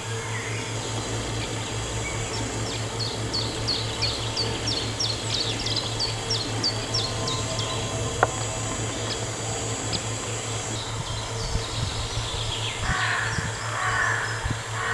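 Songbird calling outdoors: a quick run of about a dozen high, downward-flicking chirps, roughly four a second, a few seconds in, with more bird calls near the end. A steady low hum runs underneath.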